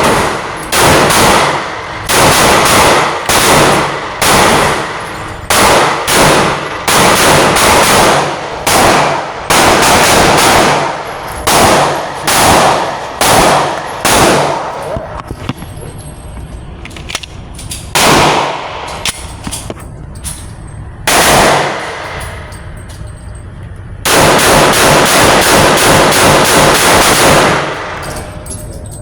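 A Glock 22 Gen 2 pistol in .40 S&W firing a long string of loud shots at a steady pace, then a few shots spaced seconds apart, and an unbroken run of very rapid shots near the end.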